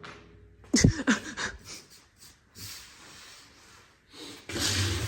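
A few sharp knocks and rattles about a second in, then a power drill running in a short burst near the end as it drives a screw into the cabinet.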